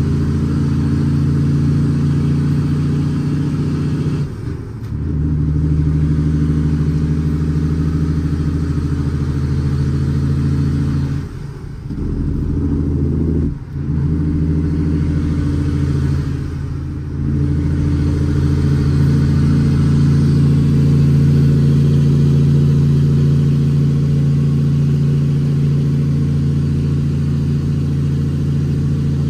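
Cab interior sound of an International ProStar dump truck's ISX Cummins inline-six diesel pulling a full load of gravel. It runs with a deep steady note that dips briefly four times as the 18-speed transmission is shifted, then comes back under power.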